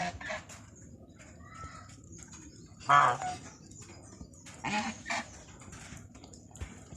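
Black swans calling: a short call right at the start, the loudest one about three seconds in, and two more close together around five seconds in.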